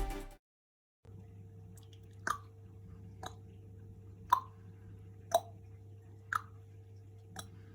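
Background music cuts off right at the start. After a moment of silence come faint, sharp ticks about once a second over a low steady hum.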